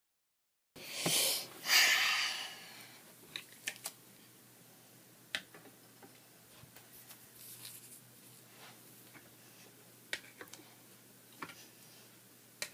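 Handling noise: two loud rustling bursts about a second in, then scattered light clicks and taps as plastic doll stands are set down on a wooden tabletop, over a faint steady low hum.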